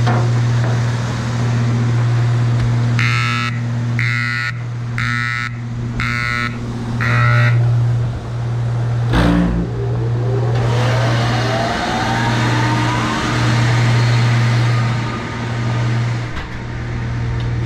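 Grain dryer running with a steady low hum. About three seconds in, five beeps sound about a second apart as the controller restarts after a communication fault. About nine seconds in there is a clunk, then a motor spins up with a whine rising in pitch over a few seconds.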